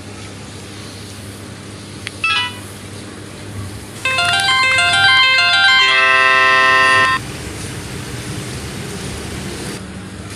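Mobile phone power-off tone for the Samsung SPH-A640: a quick chirp of short beeps about two seconds in, then a loud electronic jingle of quick stepped notes lasting about three seconds and ending on a held chord. A steady low hum runs underneath.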